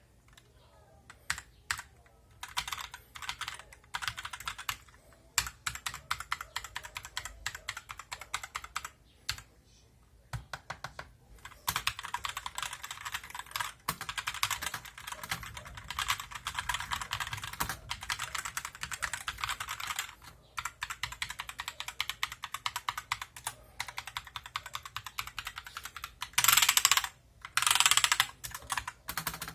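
Fantech MK853 mechanical keyboard with linear red switches being typed on. A few scattered keystrokes come first, then fast continuous typing from about a third of the way in, and two short, louder bursts of rapid key presses near the end.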